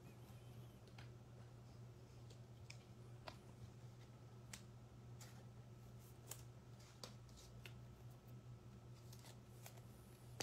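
Faint, scattered clicks and rustles of trading cards and plastic card holders being handled, over a low steady hum; near silence otherwise.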